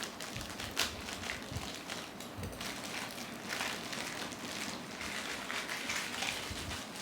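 Plastic blind-bag wrapper rustling and crinkling, with scattered small clicks, as it is pulled open and the toy pieces are taken out.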